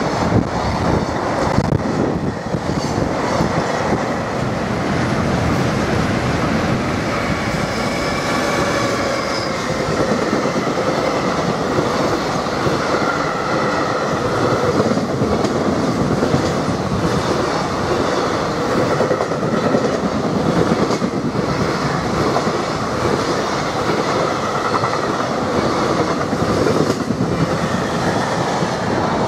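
Long container freight train running past close by, its wagon wheels rumbling and clattering steadily over the rail joints. Faint wheel squeal comes in from about seven seconds in.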